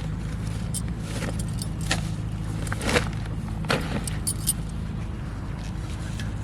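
A steady low motor hum with scattered clicks and knocks over it; the sharpest knock comes about three seconds in.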